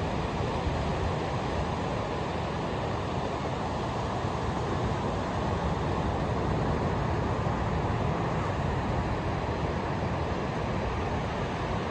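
Ocean surf at a beach: a steady, even roar of breaking waves with no single crash standing out.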